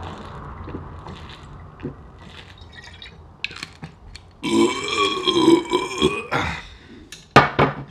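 A man gulps from a bottle, then lets out a long, loud burp about halfway through that lasts nearly two seconds. A short, sharp noise follows near the end.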